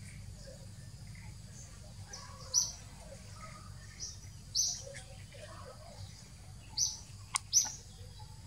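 A bird's short high chirps, four of them about two seconds apart, with a single sharp click between the last two, over a steady low rumble.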